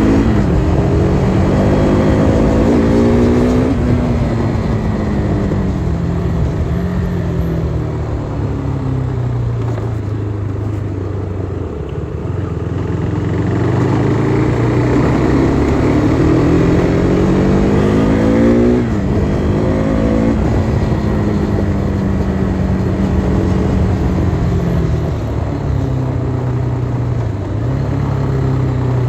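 KTM RC 390's single-cylinder engine riding through the gears: revs climb, then drop sharply about four seconds in, and the engine slows gradually before pulling hard again. A second sharp drop near two-thirds of the way through, likely an upshift, is followed by steadier running with small dips near the end, over wind and road noise.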